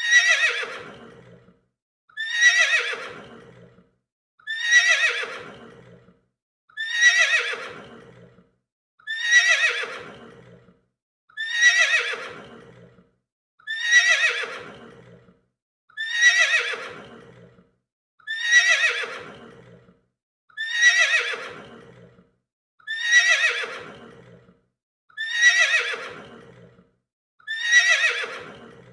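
A horse whinnying, the same neigh repeated over and over about every two seconds as a looped sound effect. Each whinny starts high, slides down in pitch and fades out, with a moment of silence before the next.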